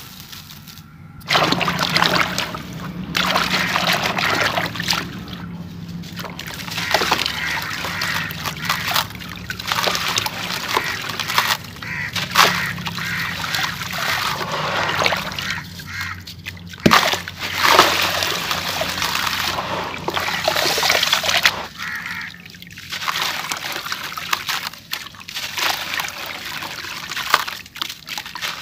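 Hands crumbling and squeezing wet sand-cement lumps in a plastic tub of muddy water: irregular sloshing, splashing and dribbling with occasional sharp gritty clicks, starting about a second in.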